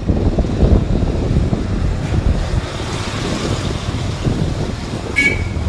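Wind buffeting the microphone and rolling noise while riding a mountain bike, a steady low rumble. A brief high-pitched tone comes in near the end.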